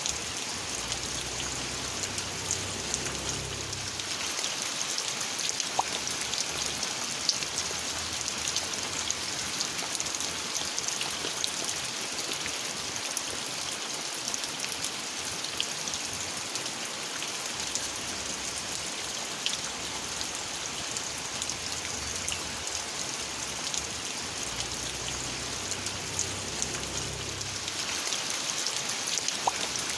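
Steady rain falling, a constant hiss with many individual drops ticking sharply on top of it.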